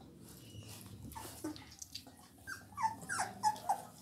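Labrador Retriever puppy whimpering: a run of short cries, each falling in pitch, a couple faint about a second in, then coming quickly and loudest in the last second and a half.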